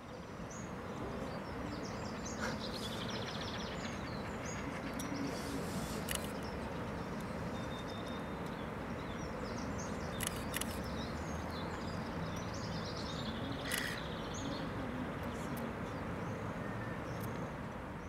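Birds chirping and calling, short trills and chirps scattered throughout, over a steady outdoor background noise with a few sharp clicks.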